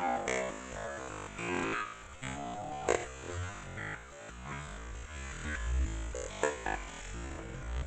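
Background music: an electronic synthesizer and keyboard track with shifting notes over a continuous low bass.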